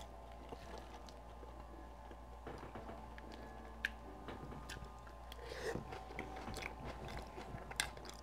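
Faint, close-up chewing of loaded cheese fries, with soft mouth sounds and a few sharp clicks.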